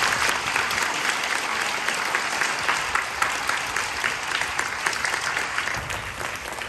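A large group of schoolchildren applauding together, many hands clapping at once. The clapping is loudest at the start and gradually thins out toward the end.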